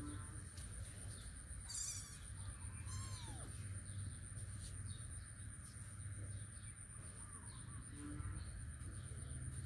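A few short, faint animal calls, the clearest about two and three seconds in, one of them falling in pitch, over a steady low hum and a thin, high, steady whine.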